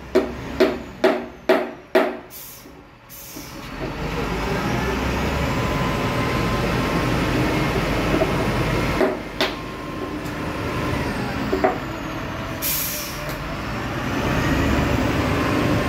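SDLG wheel loader's diesel engine running as the machine drives, the sound building and then holding steady. It opens with five sharp knocks about half a second apart and two short hisses. A brief burst of air hiss comes about three-quarters of the way through.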